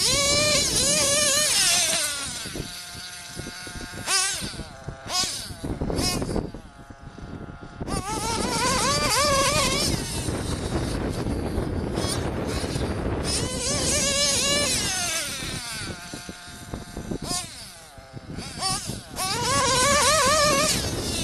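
OFNA Hyper 10SC RC truck's modified JL21 big-block nitro engine revving, its high whine rising and falling as the throttle is worked. It runs at high revs at the start, drops lower for a few seconds, then winds up again several times, the last time near the end.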